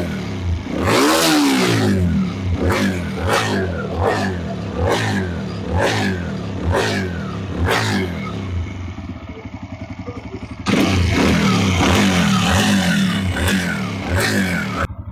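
TVS Raider 125's single-cylinder engine revved in quick repeated throttle blips, each rising and falling back, for about eight seconds. It settles to a quieter idle, then the revving starts again suddenly about eleven seconds in.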